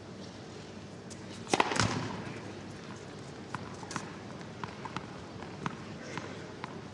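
Tennis point in play: a loud racket-on-ball strike with a brief ring about a second and a half in, then scattered lighter ball hits, bounces and footsteps on the court over steady stadium crowd hush.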